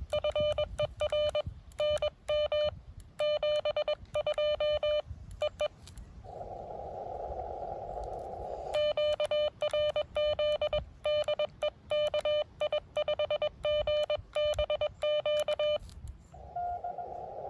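Morse code sidetone from an amateur radio transceiver: a steady beep keyed into dits and dahs in two long runs. Between the runs, and again near the end, the receiver's band hiss comes in, with one short faint beep in the hiss near the end.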